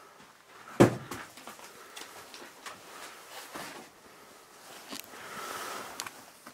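A single sharp knock about a second in, then scattered small clicks and handling noises among the furniture. Near the end comes a longer rustle of cloth as a white sheet covering a painting is pulled aside.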